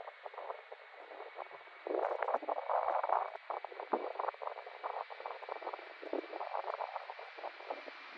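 Air-band radio hiss and crackle with a faint steady whine, choppy and unintelligible, louder from about two seconds in.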